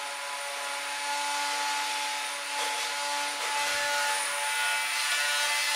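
Nerf Ultra blaster's electric flywheel motors running with a steady whine, but no dart fires: the blaster is jammed.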